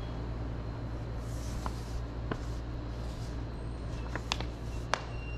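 Steady low hum of a quiet room, with a few light, sharp clicks and taps scattered through it; the sharpest comes about five seconds in.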